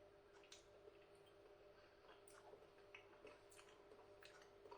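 Near silence with faint, scattered soft clicks of a mouthful of peas and gravy being chewed, over a faint steady hum.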